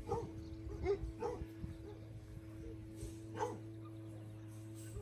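Puppy whimpering in short, high cries, about four of them spread over a few seconds, each dropping a little in pitch.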